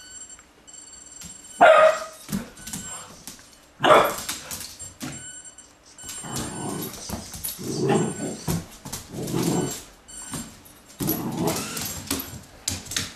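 Golden retriever puppy barking: two loud, sharp barks, about one and a half and four seconds in, followed by a longer stretch of rougher, uneven dog sounds.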